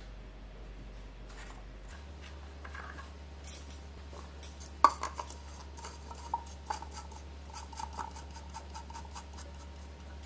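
Small hard plastic clicks and knocks as an oil filler cap is taken off and a plastic funnel is fitted into the engine's oil filler neck: one sharp click about five seconds in, then a string of lighter clicks.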